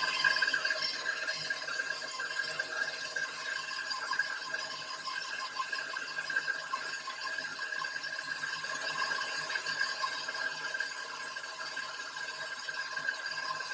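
KitchenAid stand mixer running steadily at medium speed, its motor giving an even whine as the flat beater creams butter and cream cheese in the steel bowl.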